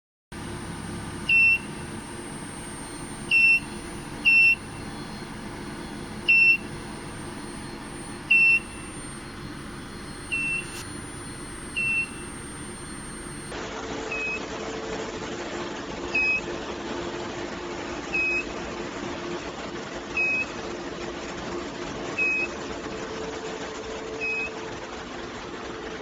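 Short, high electronic beeps, roughly one every two seconds, over a steady machinery hum; in the second half a low steady drone joins the hum.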